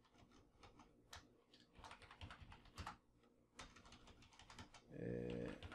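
Faint, irregular keystrokes on a computer keyboard as code is typed, with a brief pause around three seconds in. A man's voice starts near the end.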